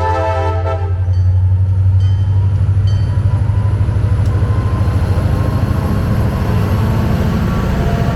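CSX diesel locomotives departing: a horn blast that ends about a second in, then the diesel engines running with a deep, pulsing rumble as the train pulls away.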